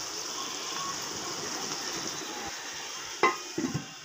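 Beef liver in masala sizzling in a pot, a steady hiss. About three seconds in, the pot lid goes on with a sharp clatter and a few lighter knocks, and the sizzle is muffled after.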